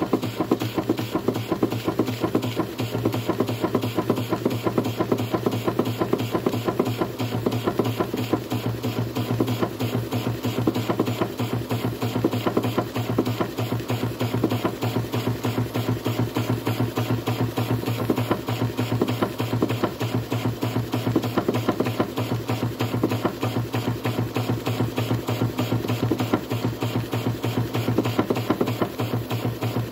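Schoener Lipsia live-steam model engine running steadily at speed: a fast, even stream of steam exhaust chuffs and light mechanical clatter from the spinning flywheel and crank, over a steady low hum.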